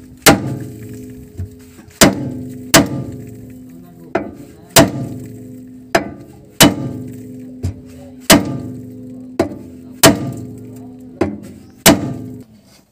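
Hammer striking the side of the steel steering center-post arm on a Suzuki Multicab, about a dozen blows roughly a second apart, each one ringing on like a bell. The blows are knocking the side of the arm's eye to shock the tapered stud of the tie-rod end free so it drops out.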